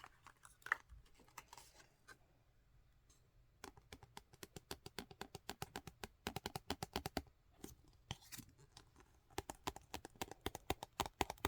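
Rapid tapping and clicking on makeup packaging, in quick runs, with a brief rustle of handling about a second in.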